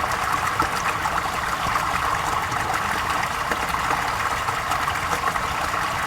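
Flowing water rippling steadily, like a stream running over stones.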